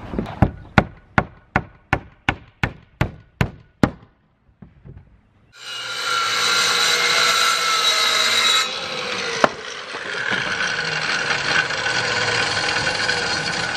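A quick run of about eleven sharp, evenly spaced strokes on wood, about three a second. Then, from about five and a half seconds in, a corded circular saw runs steadily, cutting through a wooden roof board; it dips briefly partway through, and there is a single click.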